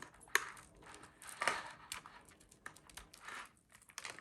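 Protective plastic being picked and peeled off a new stainless steel watch band: crinkling rustles with a few sharp clicks, the plastic proving fiddly to get off.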